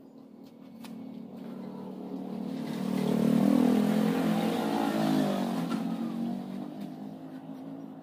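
A motor vehicle driving past, its engine growing louder to a peak about three and a half seconds in and then fading away.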